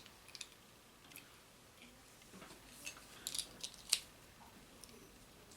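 Faint, scattered clicks of plastic Lego bricks being handled and pressed together, with a quick run of clicks about three to four seconds in.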